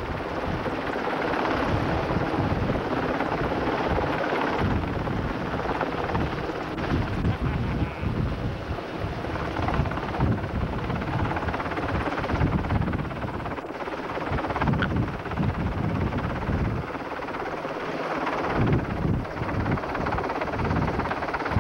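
UH-60 Black Hawk helicopter hovering close overhead: continuous rotor and turbine noise, with rotor wash gusting on the microphone.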